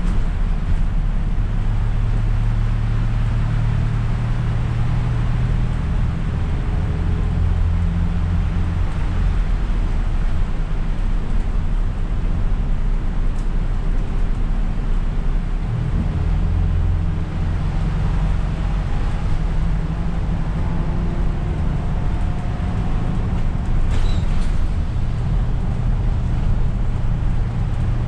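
Isuzu Erga city bus's diesel engine running under way, heard from the driver's seat as a steady low drone over tyre hiss on a wet road; the engine note changes a few times as it pulls along.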